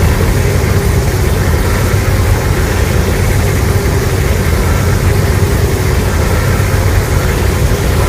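A loud, steady low rumble, a Godzilla monster sound effect, running unbroken and starting to fade just after the end.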